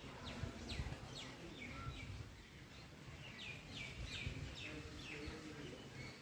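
Small birds chirping: short, falling chirps repeated in quick clusters, faint, over a low rumble.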